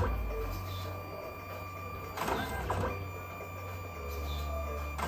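Photo booth's built-in printer running behind its print-out slot: a steady low hum, with a louder mechanical pass a little over two seconds in and another starting at the end as the print is fed through.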